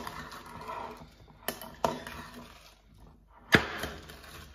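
Metal salad tongs tossing dressed lettuce in a ceramic bowl: a few sharp clinks of metal on ceramic, the loudest about three and a half seconds in, with a soft rustle of leaves between.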